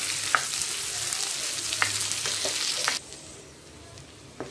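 Ivy gourd pieces frying in hot oil in a metal kadai, a dense sizzle with a few sharp clicks of the spatula against the pan as it is stirred. The sizzle drops abruptly to a much quieter level about three seconds in.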